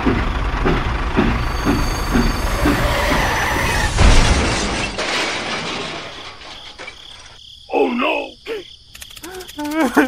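Tractor engine chugging with a low rumble and a regular beat, fading out about five seconds in. Near the end comes a short voice-like cartoon sound.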